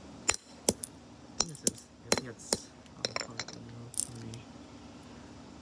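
A hammer striking the broken pieces of a PNY USB flash drive on concrete: a run of sharp clinking knocks at uneven intervals, about nine in all, which stop a little past four seconds in.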